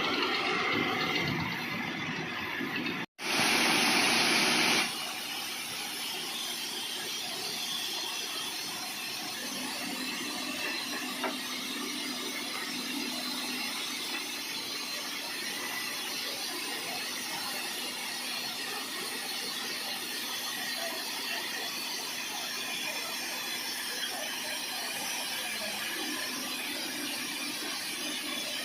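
Air-powered DTH drilling rig and its air compressor running, a steady mechanical noise. About three seconds in there is a brief break, then a louder rush of noise lasting about a second and a half.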